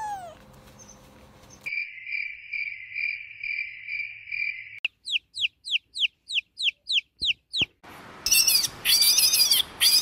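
Baby chicks peeping: a run of about a dozen short, high, falling peeps, roughly four a second, a few seconds in. Before them a kitten's meow ends and a steady pulsing high trill runs for about three seconds. After them come louder, harsher high calls near the end.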